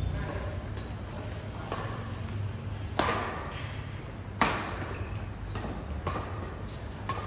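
Badminton rackets striking a shuttlecock in a rally, sharp hits about every second and a half, the loudest about three and four and a half seconds in. A steady low hum runs underneath.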